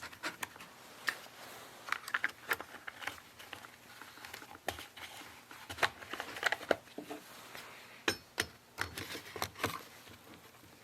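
Light handling noise of chainsaw parts and tools on a workbench: scattered small clicks, taps and rustles at irregular intervals.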